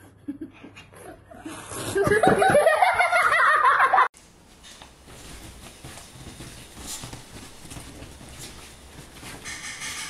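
A person laughing loudly in pulsing bursts for about two seconds, cut off suddenly. After that, a cat and a small dog scuffling on a bed, with faint rustling of the bedding.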